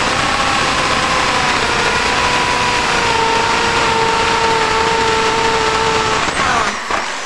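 AEG SB 500 RE corded impact drill boring into softwood with a spade bit. The motor runs with a steady whine under load that sags slightly in pitch as the bit bites. Near the end it picks up speed briefly as the bit comes free, then is switched off and whines down.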